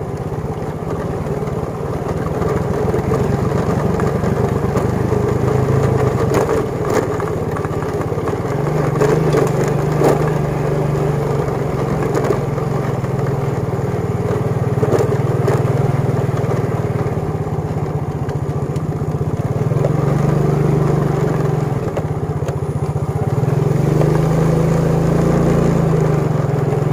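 Motorbike engine running while being ridden, its engine speed rising and falling several times, with a few short knocks.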